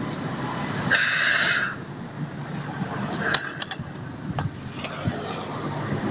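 Stuttgart Stadtbahn light-rail train running in toward the platform with a steady low rumble. A loud hiss lasting under a second comes about a second in, and a few sharp clicks follow later.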